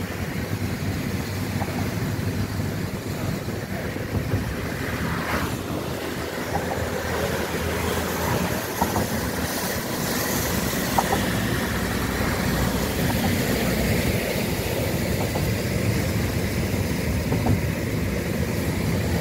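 Steady road noise inside a moving car's cabin: the low rumble of tyres and engine while driving along.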